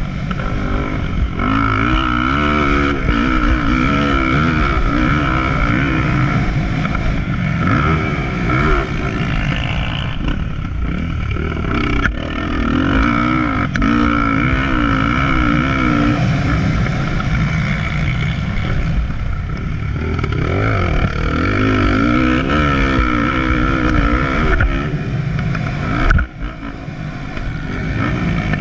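Motocross dirt bike engine, heard from the rider's helmet camera, revving hard through the gears, its pitch repeatedly climbing and falling. Near the end a sudden knock, after which the engine briefly drops off.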